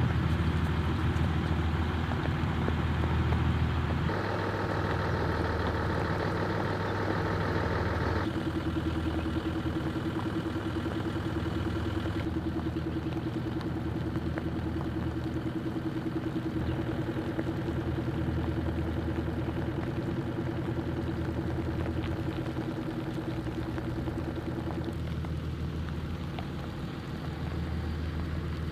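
Military light tactical vehicle engines idling steadily, the tone jumping abruptly a few times, about four, eight and twelve seconds in.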